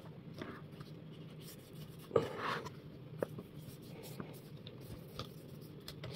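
A cloth rubbing along stiff orchid leaves as they are wiped clean, with soft intermittent swishes. One sharper knock and a short swish come about two seconds in, and a few small clicks follow.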